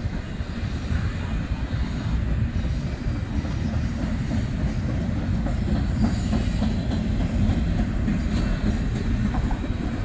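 Double-stack intermodal freight train of container well cars rolling past: a steady low rumble of steel wheels on rail, with a few brief high wheel squeals about six to nine seconds in.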